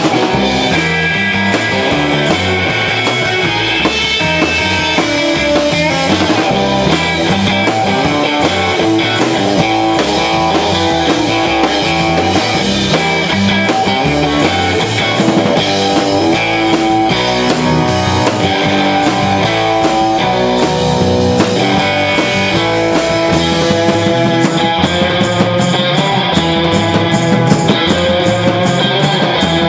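Live instrumental rock band playing: electric guitars over a drum kit, with no singing.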